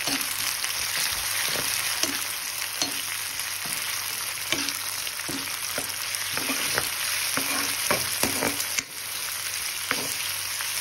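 Chopped onion frying in hot mustard oil with cumin seeds in a kadhai: a steady sizzle, with the scrape and clack of a spoon against the pan at short, irregular strokes as it is stirred. The sizzle dips briefly near the end.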